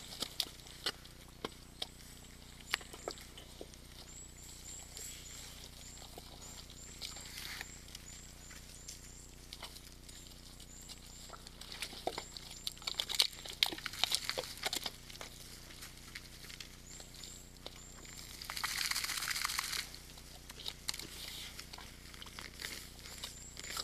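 Red deer moving about in a forest mud wallow: scattered squelches, splashes and knocks of hooves and bodies in wet mud, busiest about halfway through, with a longer rush of noise at about three-quarters of the way.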